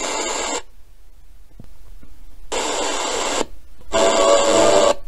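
FM radio of a small TG-184 Bluetooth speaker-radio playing through its own speaker in short bursts of about a second. Hissy radio sound cuts in and out with brief silent gaps, three times.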